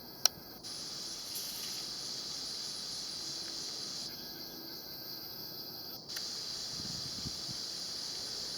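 Cicadas droning: a steady, high, continuous insect buzz, with one sharp click just after the start.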